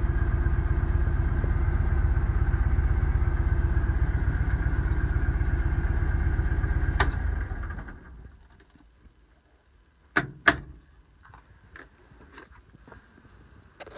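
1959 Volkswagen split-window bus's air-cooled flat-four engine idling, heard from inside the cab. About seven seconds in there is a sharp click as it is switched off, and the engine runs down and stops within about a second. A few sharp clicks and knocks follow, loudest about ten seconds in.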